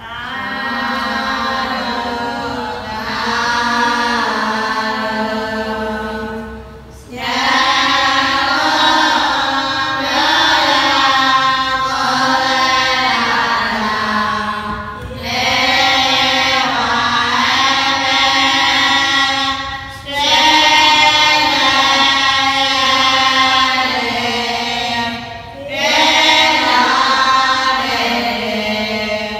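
Group of Burmese Buddhist nuns (thilashin) chanting together, long sung phrases with short breaks for breath every five to eight seconds.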